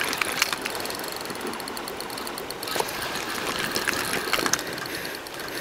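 Spinning reel being cranked to wind in a hooked fish: a steady mechanical whirring of the reel's gears with faint rapid ticking and a few light clicks.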